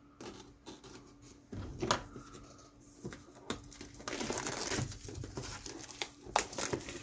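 Plastic shrink-wrap being torn and crumpled off a boxed miniatures set: scattered crackles at first, then denser crinkling for the last few seconds.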